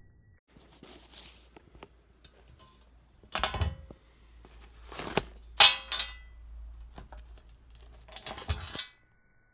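Handling noise: rustling and four short clatters, the loudest a little past halfway through.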